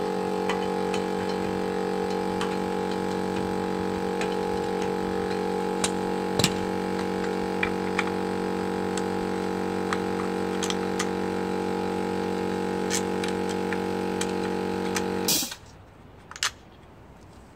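Small electric air compressor running with a steady hum, then shutting off abruptly near the end. A few sharp metallic clicks sound over it from work at the wheel.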